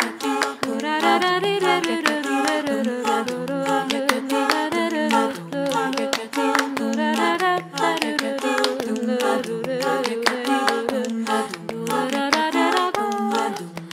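Female a cappella vocal group singing a slow jazz ballad in close harmony, a low voice stepping through the bass line under the upper parts. Sharp hand-percussion clicks keep time throughout.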